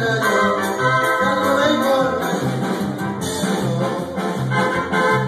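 Live band playing an instrumental break between sung verses: a bass line repeating about twice a second under a drum beat, with a melody played over the top.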